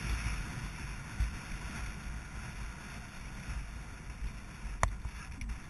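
Wind rushing and buffeting over the microphone of a rider-mounted camera as the horse moves across grass at speed, a gusty rumble with a hiss over it. A single sharp click near the end.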